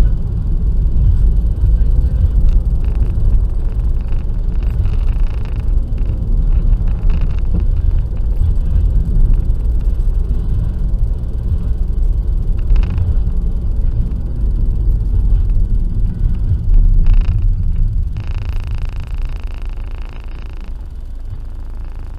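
Car travelling on a motorway: a steady low rumble of road, engine and wind noise, getting somewhat quieter near the end.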